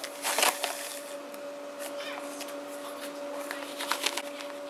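Table salt being poured into a plastic tub around two eggs: a grainy hiss in a few bursts, the loudest about half a second in, over a steady low hum.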